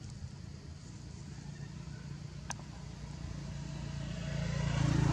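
A motor vehicle's engine approaching, its hum and noise growing steadily louder to a peak at the end. A single sharp click is heard about halfway through.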